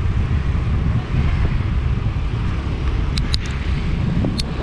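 Motor scooter being ridden: a steady rumble of wind on the microphone over the scooter's running engine. A few brief high chirps a little after three seconds in and once more near the end.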